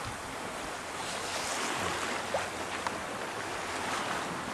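Steady rush and splash of water along the hull of a Morgan 30 sailboat moving under sail, with wind noise.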